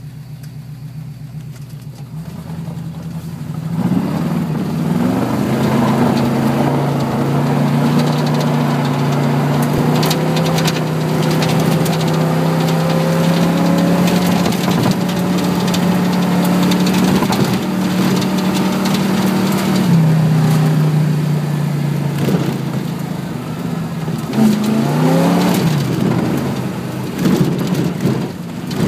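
Car engine heard from inside the cab, speeding up about three seconds in and then running steadily under way. Its pitch steps down about twenty seconds in and rises again briefly near the end.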